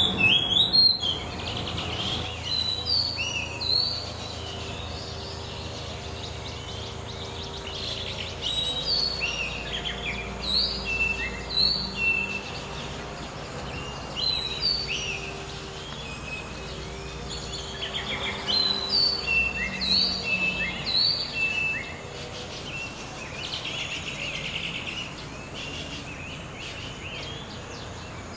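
Oriental magpie-robin singing: varied clear whistled phrases, sliding up and down, given in bouts with short pauses, fainter near the end. A steady low hum runs underneath.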